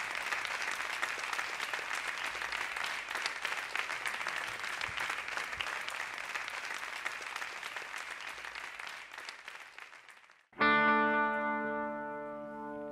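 Audience applauding, fading away over about ten seconds, then a sustained electric guitar chord rings out suddenly near the end.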